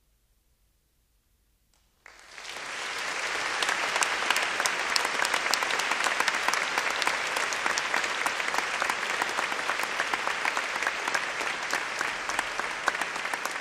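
Near silence for about two seconds, then an audience breaks into applause for a concert band, swelling within a second and continuing steadily.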